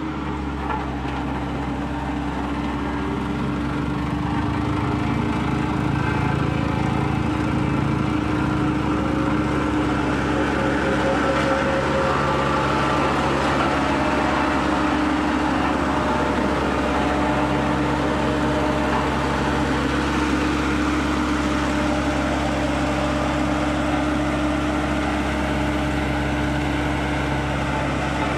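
Road roller engine running steadily, growing a little louder over the first few seconds.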